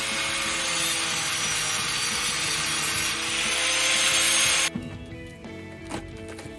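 A power tool cutting a piece of scrap metal: a continuous grinding hiss with a faint high whine that grows louder toward the end and stops abruptly about two-thirds of the way in. Background music plays underneath.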